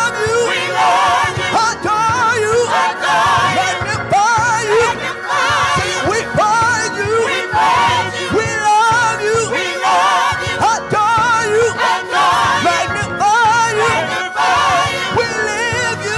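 Gospel praise team of several singers singing into microphones, the voices wavering with vibrato.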